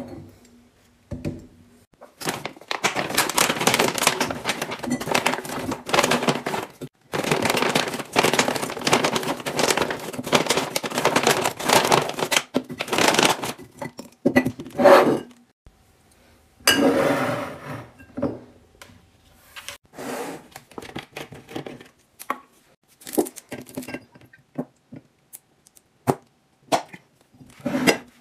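Groceries being unpacked and stowed: long stretches of packaging rustling and crinkling, then scattered knocks and clicks as containers and items are set down.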